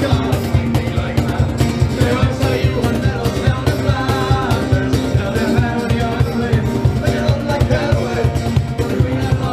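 Music with a fast, steady beat and held pitched notes over it.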